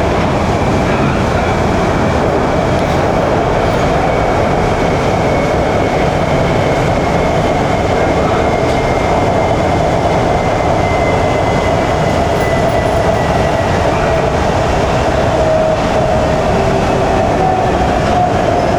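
Shenzhen Metro Line 14 train running at speed, a loud steady rumble of wheels on rail. An electric motor whine slowly falls in pitch over it.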